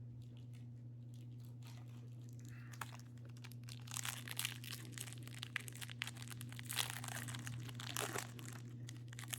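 Plastic trading-card pack wrapper crinkling and tearing as it is opened, starting about two and a half seconds in and growing busier from about four seconds.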